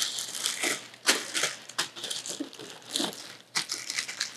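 Thin plastic crinkling and rustling in irregular bursts as it is handled, opened and pulled about.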